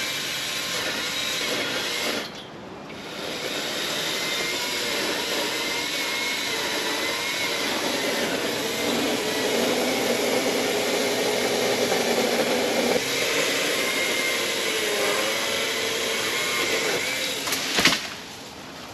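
Imoum 6-inch cordless mini chainsaw with its brushless motor, running on an extension pole and cutting through a high dead branch. The motor's whine wavers in pitch as the chain bites into the wood. It stops for about a second early on and then starts again. There is a sharp crack near the end, and the motor cuts off just after it.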